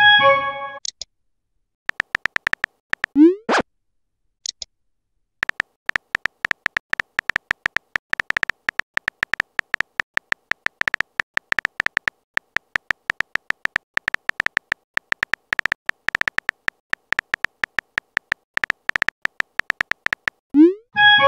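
Rapid clicks of a phone's on-screen keyboard typing out a message letter by letter. There is a rising swoosh and short chime of a message being sent at the start and again near the end, and another swoosh about three seconds in as a reply arrives.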